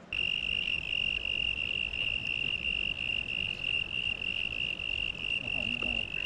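Insects trilling in a steady, continuous high-pitched buzz.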